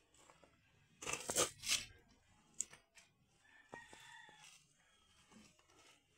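A paintbrush scraping over rough wooden boards. There are two loud scratchy strokes about a second in, then a few quieter scrapes and light taps.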